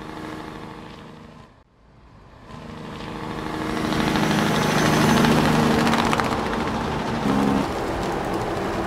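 Farm tractor engine running steadily in the field, with a short break about a second and a half in, then louder from about three seconds in.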